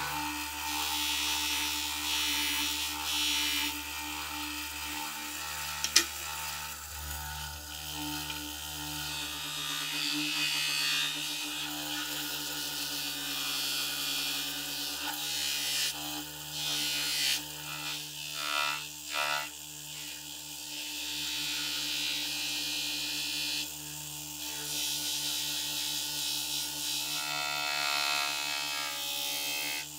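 Bench grinder motor running steadily while small metal parts are pressed against its abrasive wheel, the grinding hiss swelling and fading as each piece is worked. A single sharp click about six seconds in.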